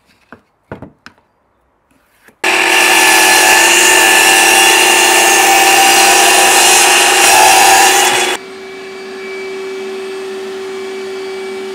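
A few light knocks, then a power saw starts about two seconds in and runs loud for about six seconds, cutting plywood squares in half along the diagonal, with a dust extractor running alongside. The saw stops and the dust extractor keeps running with a steady, quieter hum.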